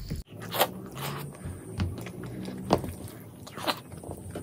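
Close-miked eating sounds: chewing a mouthful of mutton curry and rice, with a few sharp wet mouth clicks about a second apart, while fingers squelch through curry-soaked rice on the plate.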